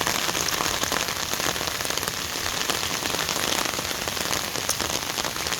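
Heavy rain falling steadily, a dense patter of countless drops hitting surfaces.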